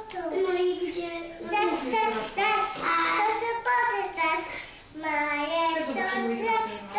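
A toddler girl singing an improvised song about her day, in long held notes that slide up and down, with brief pauses for breath.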